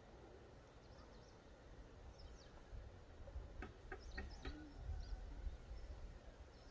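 Faint outdoor ambience: a handful of short, high bird chirps clustered around the middle, over a low rumble that grows stronger about halfway through.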